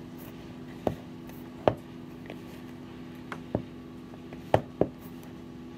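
Dough being worked by hand in a large bowl: about six soft, irregular knocks and thumps as it is pressed and pushed against the bowl, over a steady low background hum.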